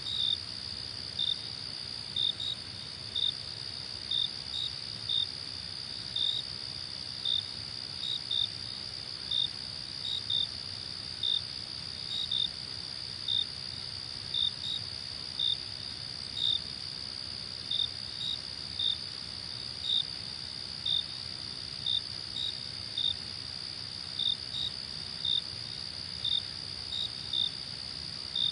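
Crickets at night: a steady high trill with a second cricket's short chirps repeating about one and a half times a second over it.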